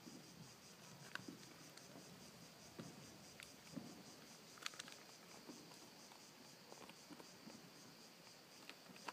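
Faint crinkling and rustling of a plastic food pouch being handled and opened, with scattered light clicks. Insects chirp steadily in a high, even pulse behind it.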